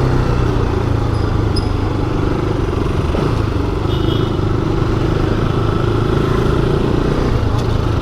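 Motorcycle engine running at a steady cruising pace while riding, with road and wind noise.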